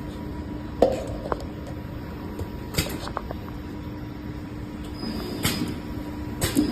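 Round screen printing machine running: a steady hum with a faint tone, broken by several sharp mechanical clacks a second or two apart as its mechanism moves.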